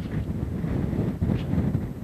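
Wind buffeting the microphone: a fluctuating low rumble with no steady tone.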